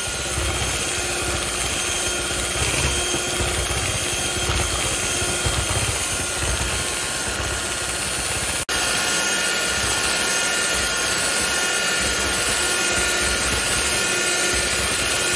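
Electric hand mixer running steadily at speed, its twin beaters whipping homemade cake cream in a glass bowl: a steady motor whine over the churning of the beaters. The sound drops out for an instant about eight and a half seconds in.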